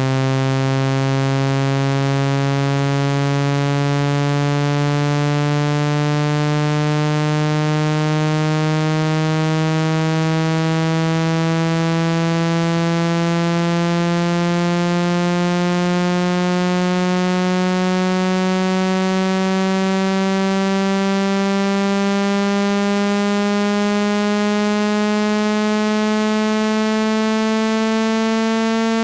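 Synthesized phone-speaker water-eject tone: a loud, low, buzzy tone rich in overtones, gliding slowly and steadily upward in pitch. Its vibration is meant to push trapped water out of a phone speaker.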